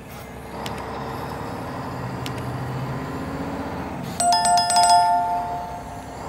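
Subscribe-button sound effects: two single mouse clicks, then about four seconds in a notification-bell ring, two bright tones with a rapid jingle of ticks that fades over about two seconds. A steady low hum runs underneath.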